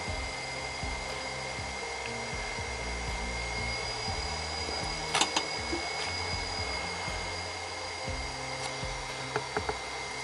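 Infrared soldering station running steadily while it heats a laptop GPU for reflow, giving a whirring hum with a thin high whine. A short click comes about five seconds in, and a few small clicks near the end.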